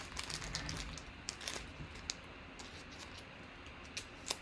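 Scattered light clicks and taps, thickest in the first couple of seconds, with two sharper clicks about four seconds in.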